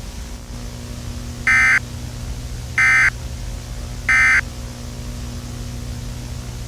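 Three short bursts of Emergency Alert System SAME data tones, a harsh digital warble, a little over a second apart: the end-of-message code that closes an EAS alert. A steady low hum runs beneath.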